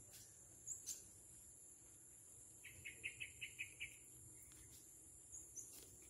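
Quiet outdoor ambience: a steady high-pitched insect drone, with a quick run of about seven chirps a little past the middle and a few faint clicks.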